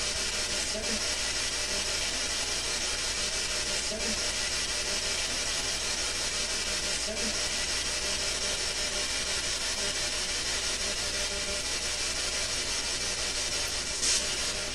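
Steady hiss of background noise, with a few faint brief sounds and a short louder hiss near the end. One of the faint sounds, about seven seconds in, is captioned by the investigators as an electronic voice phenomenon saying "seven".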